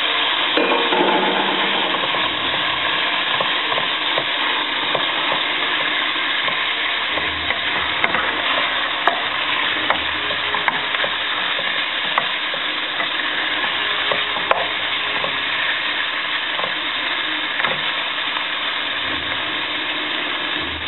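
Sliced beef sizzling steadily in oil in a frying pan as it is stir-fried with a wooden spatula, with scattered sharp clicks of the spatula against the pan.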